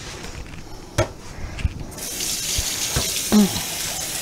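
Water running from a kitchen tap: it starts suddenly about halfway through and shuts off near the end. A sharp click comes about a second in.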